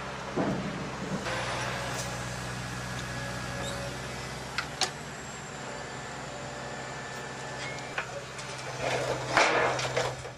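Excavator's diesel engine running steadily, with two sharp metallic clicks about halfway through and a cluster of louder clanks and scraping near the end.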